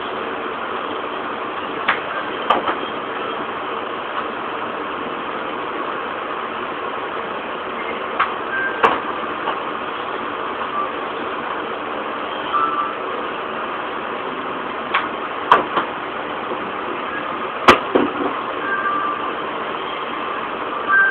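Golf club striking a golf ball, a sharp click four times, each followed by a second knock about half a second later. A steady hum runs underneath.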